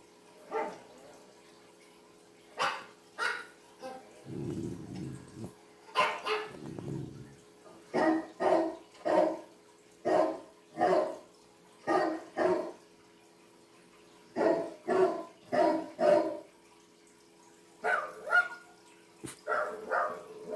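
A dog barking: short sharp barks in quick bunches of two or three, with two low rumbles in the first third.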